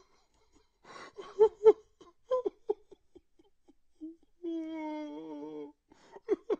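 A man crying: a run of short, catching sobs, then after a pause one drawn-out wavering whimper, and a few more short sobs near the end.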